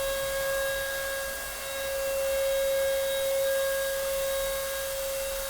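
Electric power tool used in wall work running continuously with a steady high-pitched whine, dipping slightly in loudness about a second and a half in.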